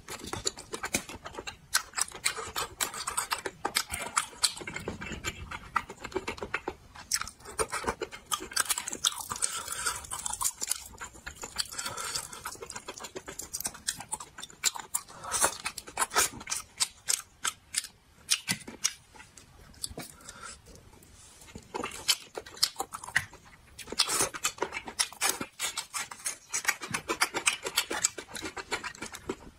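Close-miked eating: wet sucking, slurping and chewing, with many irregular clicks and lip smacks as thin-shelled pieces of spicy braised food are pinched apart by hand and eaten.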